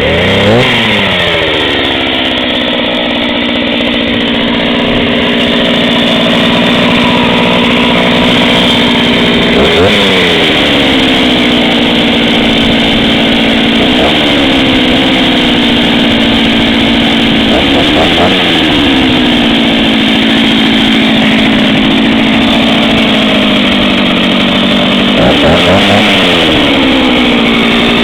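Olympyk 254 two-stroke chainsaw, ported and polished, running just after its first cold start of the day. It idles steadily and is revved briefly several times, each rev rising sharply and dropping back to idle.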